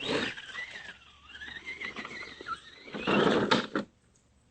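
Axial AX10 radio-controlled rock crawler's electric motor whining, its pitch wavering with the throttle as it crawls over rocks. It gives a louder, rougher burst about three seconds in, then stops.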